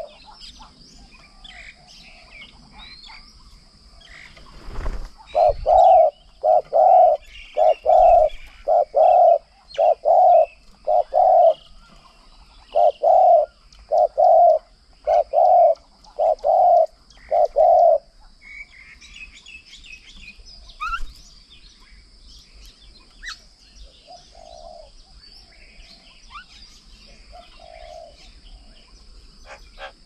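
A bird repeats a loud, hollow hooting note about a dozen times in a row, each note about half a second long, over scattered chirps of small birds. The hooting stops a little over halfway through, leaving only the chirps and a steady high hiss.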